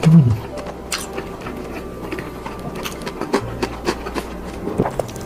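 A person chewing a bite of sauced chicken drumstick with the mouth closed, with soft wet clicks and smacks scattered throughout. It opens with a short hummed 'mm' that falls in pitch.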